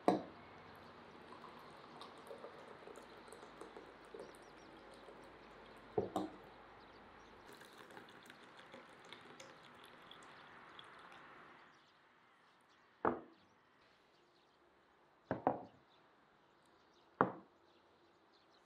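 Tea pouring from a glass teapot into small glass tea cups in a steady trickle, with a knock of glass near the start and another about six seconds in. After the pour stops, three sharp knocks as the glass cups are set on the wooden table.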